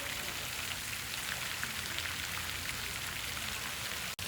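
Steady rain, with a scattered patter of drops over an even hiss.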